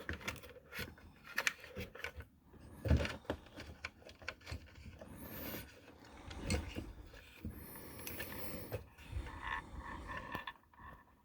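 Hands handling the parts and wires of an RC scale truck: scattered small clicks, knocks and rubbing, with a louder knock about three seconds in and a couple of faint high chirps in the middle.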